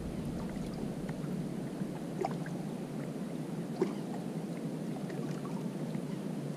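Steady low outdoor noise of calm water and light wind at a rocky shoreline, with two faint clicks about two and four seconds in.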